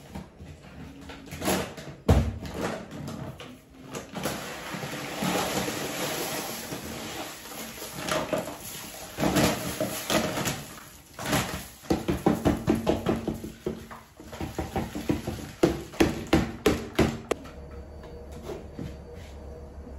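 Dry cat litter poured from its bag into a plastic litter tray, a grainy rushing hiss in long pours. Later comes a quick run of knocks and rattles as the bag and tray are handled.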